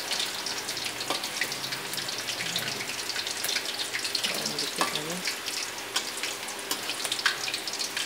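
Battered small mairo fish crackling and sizzling in hot oil in an aluminium wok, with the heat just switched off, while a spatula lifts the fish out.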